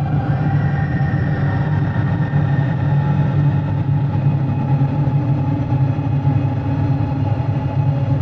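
Soma Labs Lyra-8 analog drone synthesizer holding a dense, sustained low drone with steady overtones stacked above it, washed in reverb. A faint higher tone comes in about half a second in and fades over the next couple of seconds.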